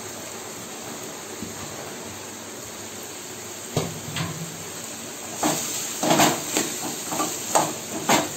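Chopped carrots and green beans sizzling in hot oil in a metal kadai, a steady hiss. About halfway through, a steel spoon starts stirring them, scraping and knocking against the pan several times.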